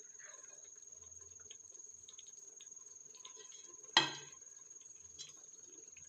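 Soft light clicks and scrapes of a utensil spreading rice in a cooking pot, with one sharp knock on the pot about four seconds in. A faint steady high-pitched whine runs underneath.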